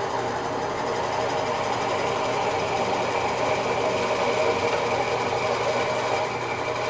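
Benchtop drill press running, its bit boring straight down into a block of wood: a steady motor hum under continuous cutting noise.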